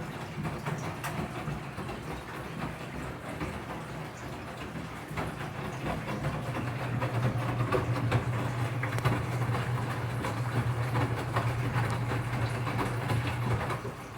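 Enxuta Master 3 washing machine agitating a load of clothes: a steady motor hum with water and clothes sloshing and knocking in the tub. The hum grows stronger partway through and stops abruptly near the end.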